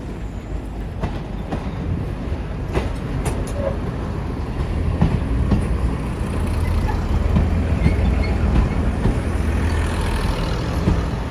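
A train running on the track close by: a low rumble that grows louder over the first few seconds and then holds, with scattered sharp clicks from the wheels and rails.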